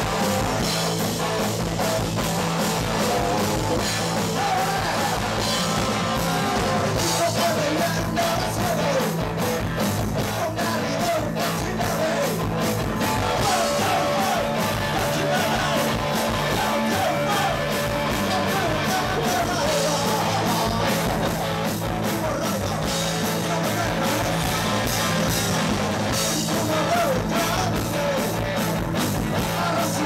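Punk rock band playing live: electric guitar and a steady drum beat, with a singer's voice over them.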